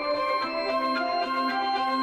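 Soundtrack music of held, slowly changing notes, with a lower line coming in about half a second in.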